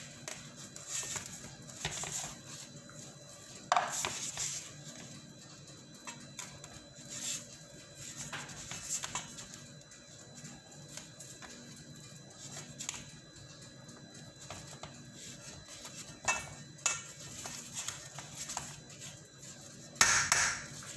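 Silicone spatula scraping and tapping against a baking pan as thick batter is spread, in short, irregular strokes. It gives a sharper knock about four seconds in and another near the end.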